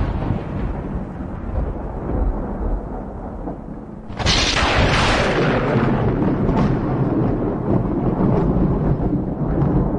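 Thunder without rain: a low rumble dies away, then about four seconds in a sudden sharp crack breaks into a long, slowly fading rumble.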